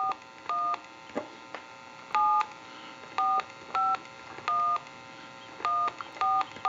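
Touch-tone keypad of a Western Electric glow phone dialing a long-distance number: about nine short two-tone DTMF beeps, each a fraction of a second long, at an uneven pace.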